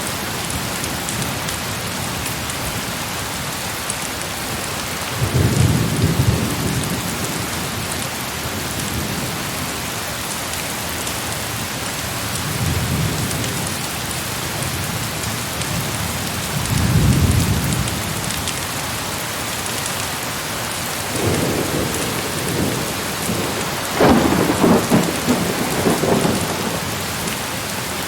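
Heavy rain pouring steadily, with thunder rumbling low about five times, each roll swelling and fading over a second or two; the strongest roll comes near the end.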